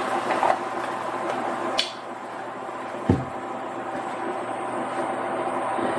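Mushrooms, garlic and broth sizzling in a hot pan, a steady hiss, with a sharp knock about two seconds in and a low thump about three seconds in.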